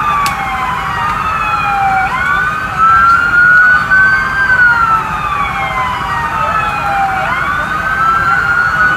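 Police vehicle sirens wailing, at least two at once and out of step with each other, each slowly sweeping down and back up in pitch every few seconds.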